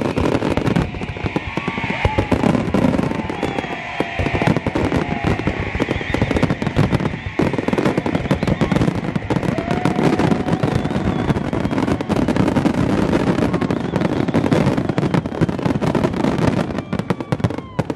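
Fireworks display: many aerial shells bursting in a dense, continuous barrage of bangs and crackling.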